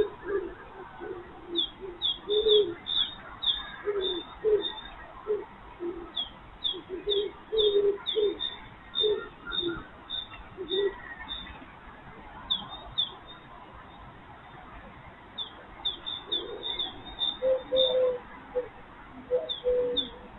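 Birds calling: a run of low repeated cooing notes through the first half, then a common cuckoo's two-note call near the end, over short, high chirps from small birds.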